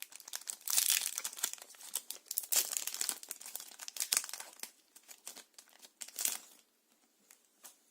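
Foil wrapper of a Yu-Gi-Oh booster pack crinkling as it is torn open, a dense crackle for the first few seconds, then a few scattered crinkles that die away near the end.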